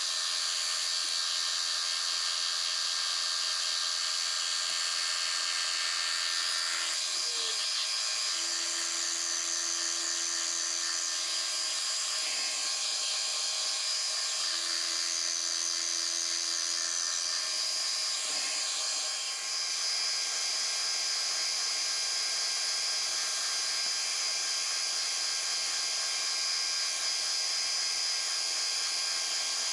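Manual milling machine running a boring head that scallops the end of rectangular steel tubing: a steady high-pitched machining whine with cutting hiss. A lower steady hum joins about two-thirds of the way through.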